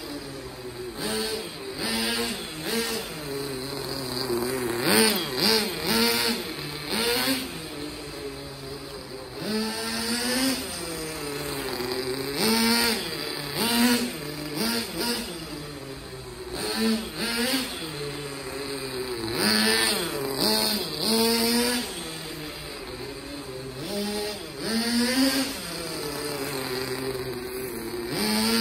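Kyosho ZR1 FR radio-controlled car's motor whining up and down in repeated throttle bursts as it accelerates and slides, with short hissy surges from the tyres scuffing the concrete during drifts.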